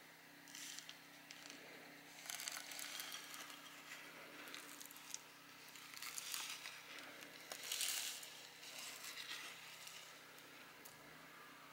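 Granular bonsai soil trickling and rattling out of a cylindrical soil scoop into a pot in several short pours, the loudest about eight seconds in.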